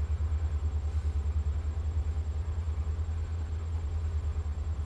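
A low, steady electrical hum with a fast flutter in its level, from the powered-up tube amplifier test bench.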